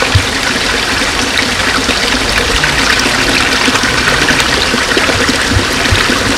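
Steady splashing and trickling of a small rock waterfall pouring into a garden koi pond, with a few brief low thumps.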